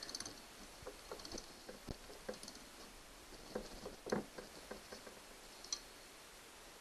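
Scattered clicks and light metal clinks of a socket ratchet wrench working the bolts on a Yamaha 6 hp four-stroke outboard's lower unit, the sharpest click about four seconds in.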